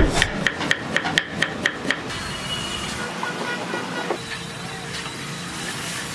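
Busy street ambience: traffic noise with engines and horn toots. It opens with a quick run of sharp clicks, about four a second, that stops about two seconds in.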